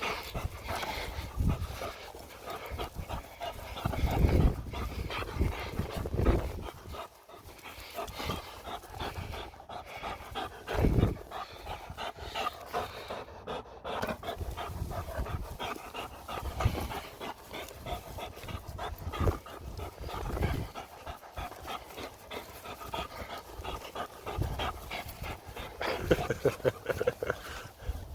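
A dog panting rapidly and steadily close by, with a few low bumps along the way.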